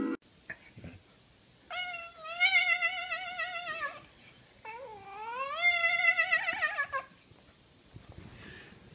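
Tabby cat yowling in two long, wavering calls, the second sliding up in pitch as it begins.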